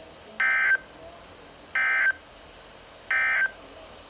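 Emergency Alert System end-of-message (EOM) data code: three short, identical bursts of buzzy two-tone digital data about a second apart, marking the end of the alert broadcast.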